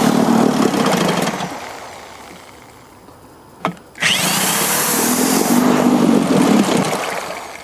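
Evinrude 3 hp two-stroke outboard motor starting twice with the choke off. Each time it runs for about two seconds and then dies away, and there is a short knock between the two runs. It won't stay running because of a carburettor fault: fuel is leaking out of the carb.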